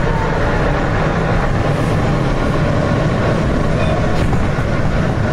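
R160B Siemens subway car running, with a loud, steady rumble of wheels on rail and motor noise, as the train comes into a station.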